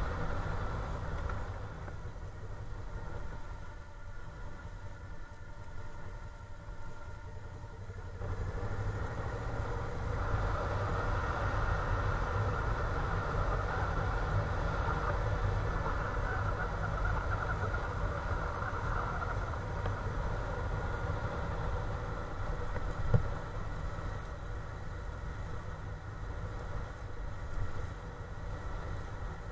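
Motorcycle engine running under way, with a steady rumble of wind on the microphone. It gets louder about eight seconds in, and there is a single sharp click a little past twenty seconds.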